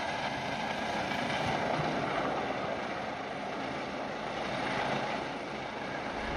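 Rescue helicopter flying overhead at height with a person slung on a rope below it; its rotor and engine noise is a steady, even sound.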